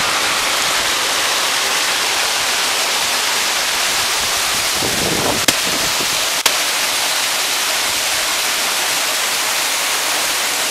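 Waterfall cascading over a rock slab into a pool, a steady, even rush of falling water. Two short sharp clicks sound about halfway through, a second apart.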